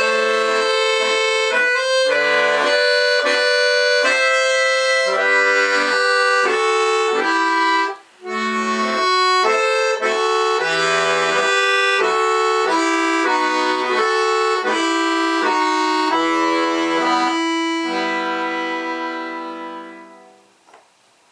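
Bayan (Russian button accordion) playing a folk-song arrangement in chords and melody, with a short break about eight seconds in. The piece closes on a long held final chord that fades away just before the end.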